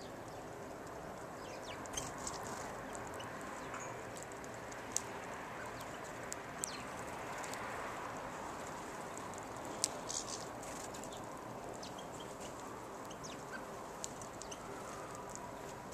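Steady background hum with scattered short, high chirps and sharp clicks around a garden seed feeder. The loudest click comes about ten seconds in.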